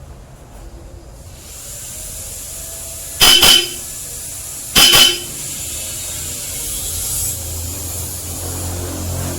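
Bosch Europa aftermarket car horn, connected on its own, sounding two short blasts about a second and a half apart.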